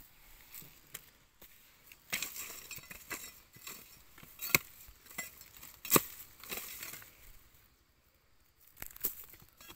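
Crackling and rustling of dry grass, soil and root fibres as freshly dug arrowroot tubers are handled, with two sharp snaps about four and a half and six seconds in.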